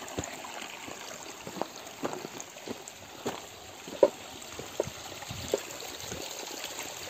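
Small mountain stream trickling and splashing over rocks, with a few short sharp sounds scattered through it.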